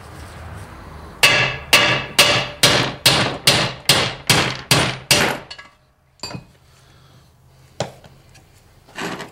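Hammer blows driving the front output shaft front bearing out of an NP208 transfer case housing: about ten sharp strikes, a little over two a second, each ringing briefly. After a pause come a few lighter knocks as the bearing comes free.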